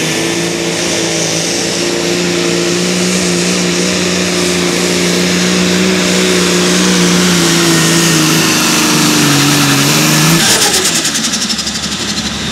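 Super stock pulling tractor's engine running flat out under load at a steady high pitch, which sags a little before the throttle is cut about ten seconds in at the end of the pull, leaving a fluttering rush of noise as it winds down.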